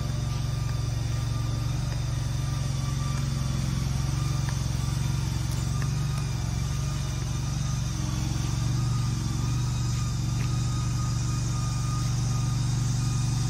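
Engine of the machine moving the shed running at a steady speed: a constant low drone with no change in pitch.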